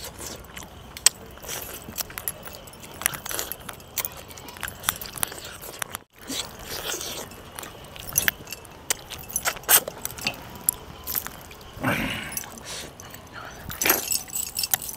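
Eating by hand: chewing on chicken paya (chicken feet) with rice, among many small sharp clicks and jingles from metal bracelets and neck chains. The sound cuts out briefly about six seconds in.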